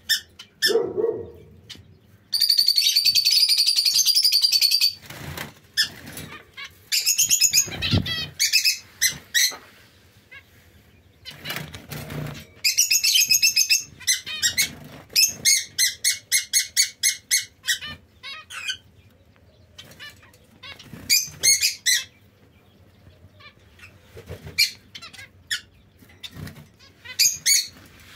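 Caged zebra finches and society finches calling and singing: many short nasal beeps and several buzzy, rapidly pulsed song phrases, the longest starting about two seconds in and lasting over two seconds.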